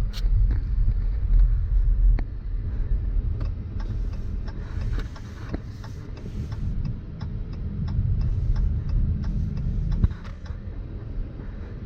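Car on the move: a steady low rumble of engine and road, with a run of evenly spaced light ticks, about two or three a second, through the middle.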